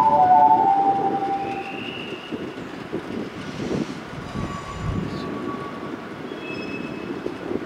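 The station departure melody finishes in the first second. Then comes the low rumble of a JR East 719-series electric train starting to pull out, with a faint rising whine about a second and a half in.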